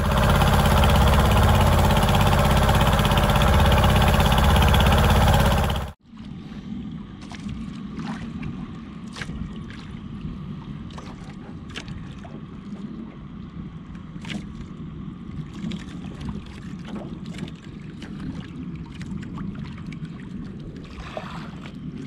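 A loud, steady rushing noise for about six seconds that cuts off suddenly. After it, water laps and gurgles against the hull and bamboo outrigger of a small drifting outrigger fishing boat, with scattered light clicks and knocks.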